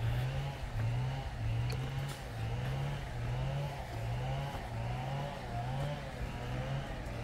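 Motor vehicle engine running steadily, its pitch wavering up and down in a regular rhythm about once every second.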